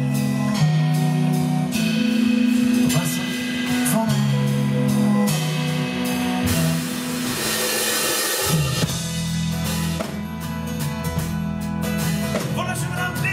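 Live band playing a song: a male voice singing over a strummed acoustic guitar, with electric bass and drum kit; the low end grows fuller about eight and a half seconds in.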